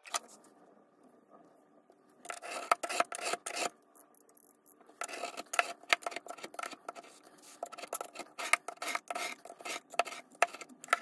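Utility knife drawn along a steel ruler, scoring through thick book board in quick, rasping repeated strokes. The strokes start about two seconds in, stop briefly for about a second, then go on in a longer run of passes.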